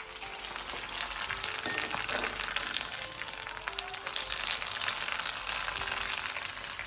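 Puris frying in hot oil, a dense crackling sizzle of many fine pops.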